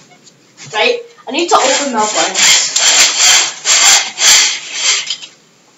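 Vertical window blinds being pulled open by hand: the slats slide and rub against each other in several rasping strokes, starting about a second in.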